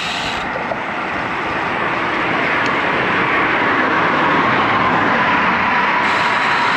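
Steady rush of wind on a bicycle-mounted action camera's microphone, mixed with passing car traffic on a parkway. A faint hum comes in about halfway through and sinks slightly in pitch.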